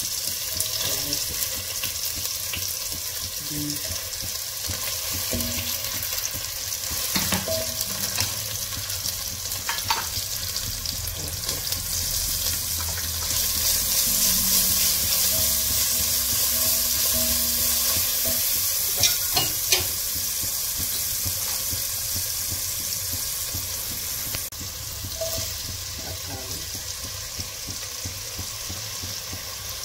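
Chopped vegetables frying and sizzling in hot oil in a pan as they are stirred, with a steady sizzle that grows stronger midway. A few sharp clicks of a utensil against the pan.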